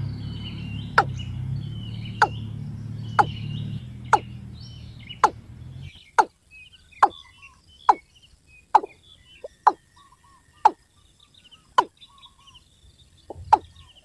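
Watercock calling: a steady series of short notes, each falling quickly in pitch, about one a second, with small birds twittering faintly behind. A low rumble runs under the first half and stops about six seconds in.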